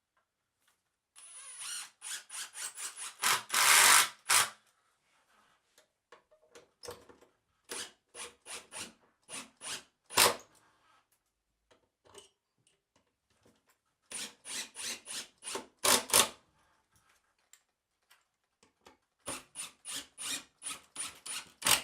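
Cordless power driver sinking Spax screws in short trigger bursts, in four rounds of rapid pulses with pauses between them. One burst is a longer, harder run.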